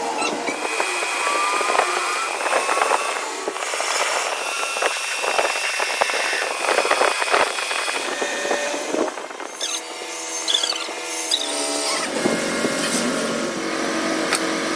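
Power tool working metal, squealing, with many clicks and knocks; about twelve seconds in it changes to a steadier motor tone.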